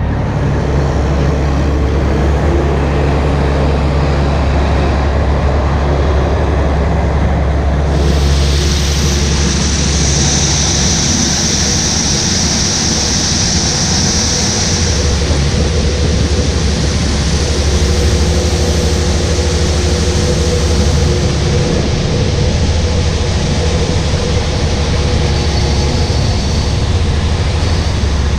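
Heavy diesel farm machinery running steadily under load, a deep drone, as a full grain cart unloads corn into a truck. A broad hiss joins abruptly about eight seconds in and carries on.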